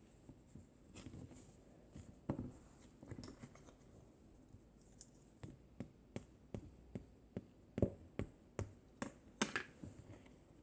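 Mousse slime being squeezed and poked by hand, giving small sticky clicks and pops: a few scattered ones at first, then an even run of about two to three a second from about halfway through.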